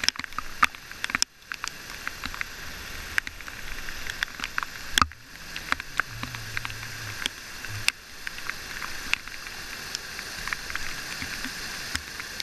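Small waterfall pouring into a river pool, a steady rush of falling water, with irregular sharp clicks and splashes from a kayak paddle working close by.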